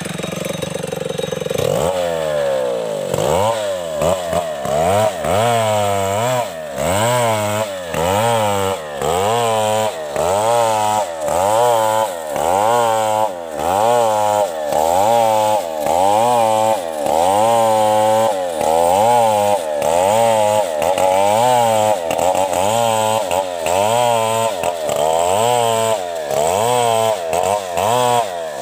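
Two-stroke chainsaw sawing a coconut palm trunk lengthwise. It runs at a steady high pitch at first. About two seconds in, the pitch drops, then rises and sags over and over, roughly every two-thirds of a second, as the engine works under load in the cut.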